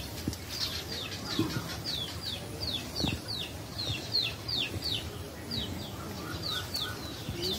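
A small bird chirping over and over: short, high, downward-sliding chirps, about three a second, with a few soft low knocks in between.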